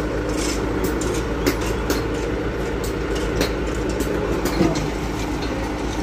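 Asphalt paver running steadily with a low machine hum while laying hot asphalt, with irregular sharp clicks and knocks over it.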